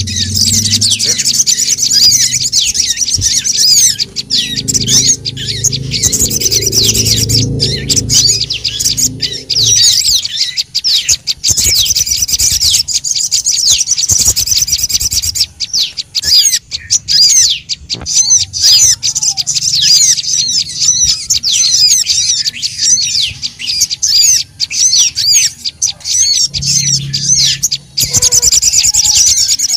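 Sogon and prenjak lumut birds chirping in a dense, busy chorus, as played for a bird lure: rapid high twittering with hardly a break. A low rumble sits beneath it for about the first ten seconds.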